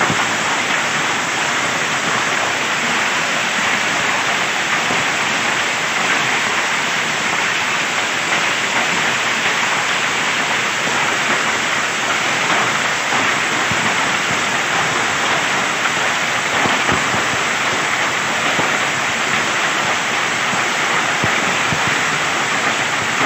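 Hailstorm: hailstones falling thick and fast onto the ground, a loud, steady, dense hiss of countless small impacts that never lets up.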